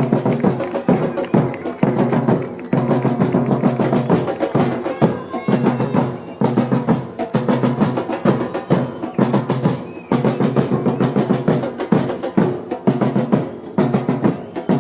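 A street percussion group plays a fast, driving rhythm on large metal-shelled surdo-style drums beaten with sticks. A few short breaks fall between phrases.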